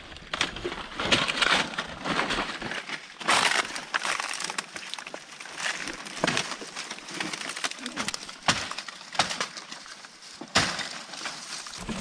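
Dry leaves and brittle twigs crackling and snapping as a person climbs over fallen branches and pushes through dry brush, with irregular sharp cracks among the rustling.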